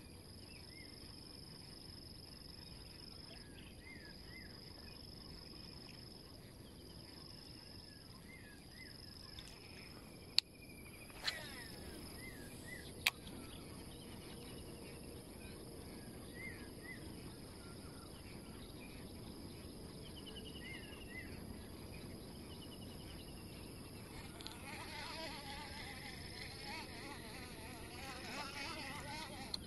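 Steady high-pitched drone of insects, with short chirps repeating every few seconds. Three sharp clicks come between ten and thirteen seconds in, and near the end there is rustling close to the microphone.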